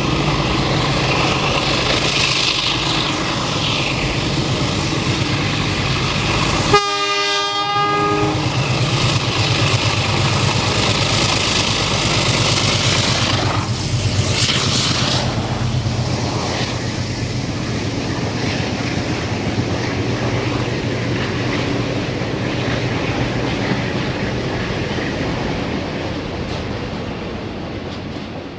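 44-class Alco diesel-electric locomotive 4490 running under power at the head of a passenger train, with a steady engine note and rail noise. It gives a short horn blast about seven seconds in. The noise swells as it passes close by about halfway through, and the carriages roll on behind it, fading near the end.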